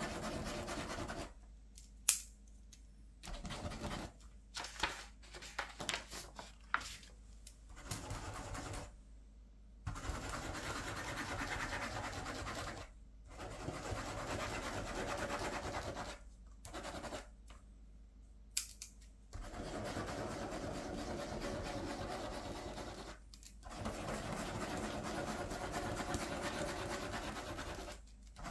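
Plastic ballpoint pens scribbling loops on paper on a clipboard: scratchy writing in stretches of a few seconds, with short pauses between them. A few sharp clicks fall in the pauses, the loudest about two seconds in.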